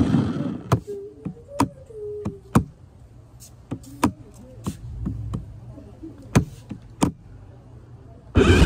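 Irregular sharp knocks and clicks, about six of them over several seconds, with a faint wavering tone in the first half.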